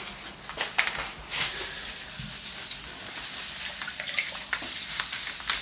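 Water running steadily from a hose into a large stainless-steel pan, filling it with about 20 litres for a smoking brine, with a few short clicks in the first second or so.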